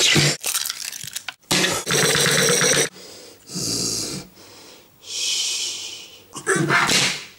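A person making loud, wheezing, breathy noises in a series of about five long bursts with short pauses between them, the last one rising in pitch.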